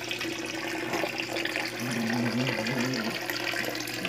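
Steady splashing and trickling of running water in a fish tank, from a homemade filter's water flow.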